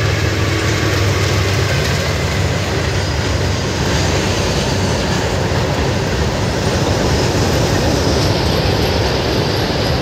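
Freight train rolling across a concrete railway bridge: a steady loud rumble and clatter of the passing wagons. The locomotive's low engine drone fades in the first second.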